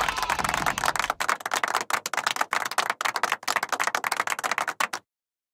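Cartoon walking sound effect: rapid light taps, about ten a second, cutting off suddenly about five seconds in.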